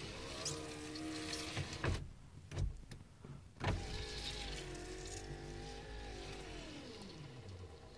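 Rear driver's-side power window of a Subaru Legacy: the window motor whirs for about two seconds and stops with a click, then runs again for about four seconds, its pitch sagging as it slows to a stop near the end. Afterwards the owner calls it a fun noise.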